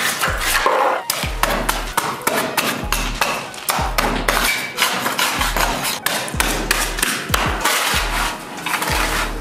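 Hatchet blade striking and chipping at a concrete sill edge and old cured expanding foam, a run of sharp, irregular knocks. Background music with a heavy bass beat runs underneath.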